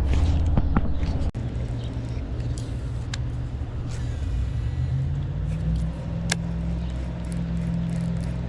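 A motor running steadily with a low hum. There is a sudden break about a second in, and the pitch steps up around halfway through.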